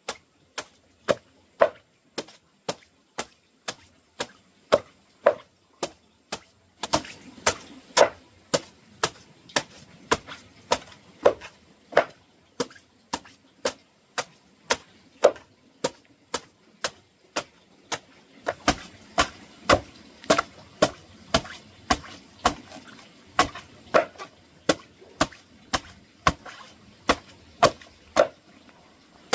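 Steady, rhythmic chopping: a blade striking onto wood about twice a second, picking up slightly in pace after about seven seconds.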